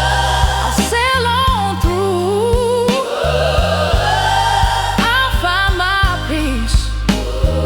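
Slow soul song: a wavering, melismatic vocal line over bass and a steady drum beat.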